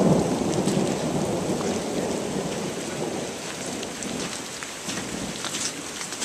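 Steady rain falling, with a long rumble of thunder at the start that fades away over the first few seconds.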